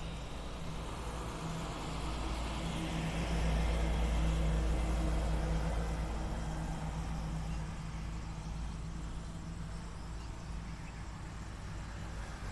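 Low rumble of a passing motor vehicle with a steady engine hum, swelling about three seconds in and fading after about six seconds.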